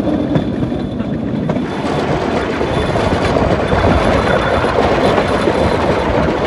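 Bamboo train (norry) running along the rails: the small engine on the bamboo platform drives it, and the wheels and frame rattle over the track. The sound is loud and steady, growing a little louder about two seconds in as it picks up speed.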